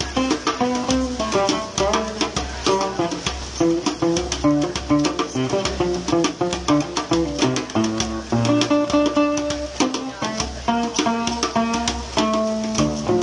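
Background music: plucked guitar over percussion with a steady, quick beat.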